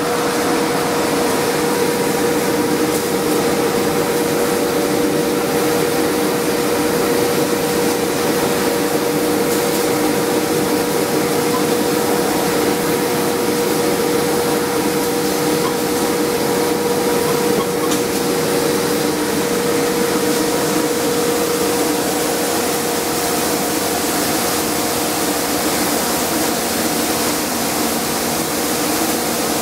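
TIG welding arc burning steadily on a 2-inch steel pipe: an even, continuous hiss with a constant hum underneath.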